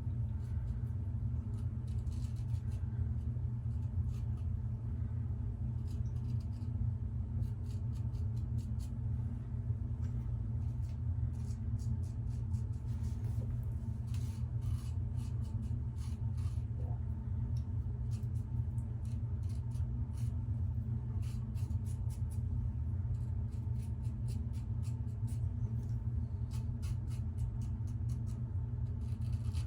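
Safety razor blade scraping over the face in many short scratchy strokes, cutting stubble during a final polishing pass, over a steady low hum.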